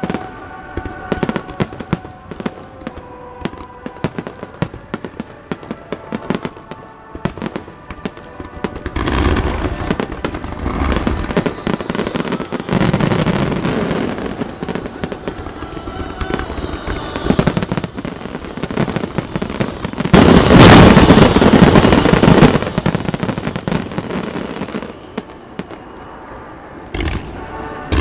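Aerial fireworks finale: many shells bursting in quick succession over a dense crackle. It builds to the loudest barrage about 20 seconds in, eases off, then surges again near the end.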